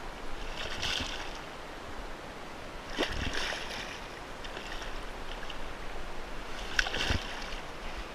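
Water splashing beside a kayak as a hooked black drum thrashes at the surface. There are three bursts of splashing, about a second in, at three seconds and near the end, the last two with a dull thump against the hull.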